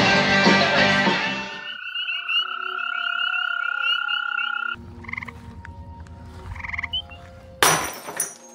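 Music for the first couple of seconds, then frogs calling: a steady, pulsing trill for a few seconds, followed by scattered separate calls over a low background noise. There is a short loud burst near the end.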